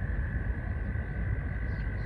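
A chorus of frogs trilling without pause as one steady high drone, over a low rumble, with a few faint bird chirps.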